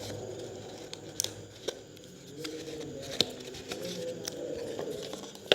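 Packaging of a smartwatch being opened by hand: a handful of sharp clicks and snips over a soft rustle.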